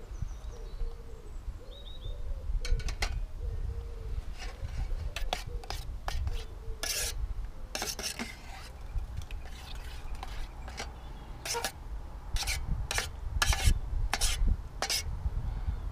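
A spoon stirring baked beans and sausages in a metal camping saucepan, scraping and clinking against the pan in repeated short strokes from a couple of seconds in to near the end.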